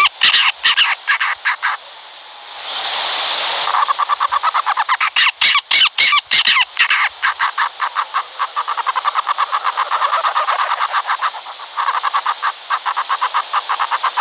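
Owl calling in a rapid series of chattering pulses, several a second, broken near the start by a short harsh hiss.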